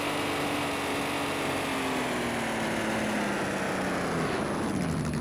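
Electric RC car's motor and drivetrain whining at a steady pitch, then falling in pitch over the last second or so as the car slows.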